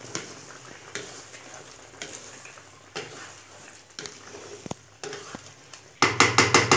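Chicken and tomatoes simmering in a karahi, a soft sizzle under occasional scrapes and taps of the stirring spoon against the pan. Near the end comes a short burst of loud, rapid clattering.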